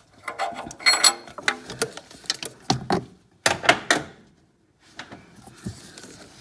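Irregular metal clicks and clinks from a wrench working a slotted oxygen-sensor socket to tighten an upstream O2 sensor, then being taken off it, with one brief ringing clink about a second in.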